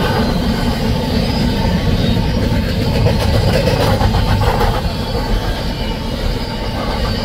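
Container-carrying well cars of a freight stack train rolling past: the steady, loud run of steel wheels on the rails.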